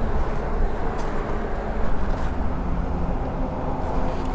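Steady low rumble of vehicle engines and road traffic, with a faint steady hum over it.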